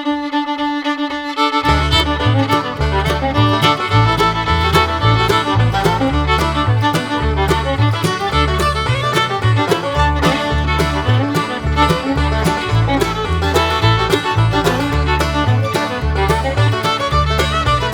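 Upbeat background music led by fiddle, in a bluegrass-country style, with a bass line that comes in about two seconds in.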